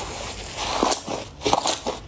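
Soft purple slime being squeezed and pulled apart by hand, crackling and popping in a few bursts.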